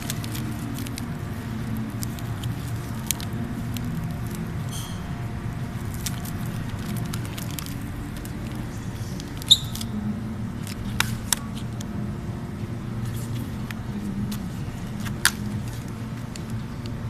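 Steady low hum of refrigerated supermarket display cases, with a few sharp light clicks and ticks scattered through.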